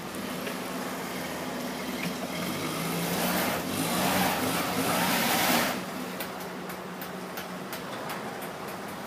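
Toyota forklift engine running as the unladen truck climbs a steel-grating loading ramp. About three seconds in, the engine revs up and a loud rushing noise builds, which fits the drive wheels spinning for lack of grip with no load on the forks. The noise cuts off suddenly just before six seconds, followed by scattered light ticks.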